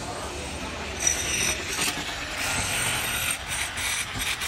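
Metal wheelbarrow rattling and creaking as it is pushed over rough, rubble-strewn ground, with scattered clicks and scrapes.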